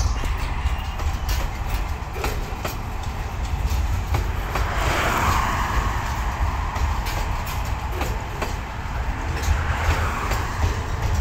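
Qube freight train rolling past: a steady low rumble with repeated clacks of wheels over rail joints, and a rushing hiss that swells about halfway through and again near the end.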